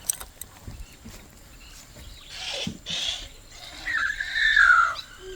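A few faint clicks and two short rustling bursts, then a drawn-out animal call that falls in pitch, about four seconds in.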